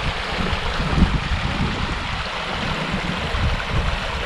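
Small moorland stream running over stones, a steady rush of water, with gusty wind buffeting the microphone.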